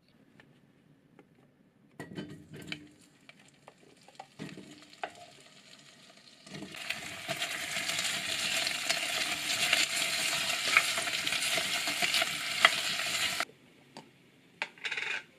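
Potato and carrot chunks sizzling in hot oil in a cast iron pot as a wooden spatula stirs them. A few knocks come first, and the loud sizzle begins about six seconds in and cuts off suddenly near the end.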